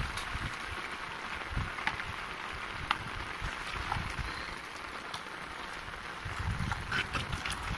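Steady hiss of light rain, a drizzle, falling onto flooded ground, with a few low rumbles, the strongest about six to seven seconds in.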